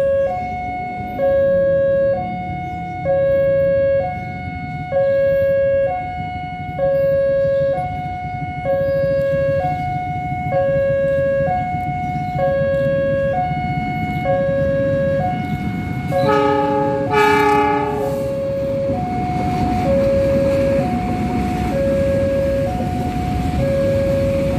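Railway level-crossing warning alarm sounding an alternating two-tone electronic chime, a lower and a higher note each lasting just under a second. About two-thirds of the way in, a diesel locomotive horn sounds for about a second and a half, and the rumble of the approaching locomotive grows under the alarm after it.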